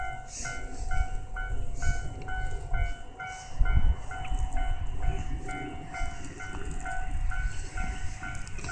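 A diesel limited-express railcar train runs past, its engines and wheels making a heavy low rumble with irregular thumps. Over it a level-crossing warning bell rings steadily, about two strikes a second.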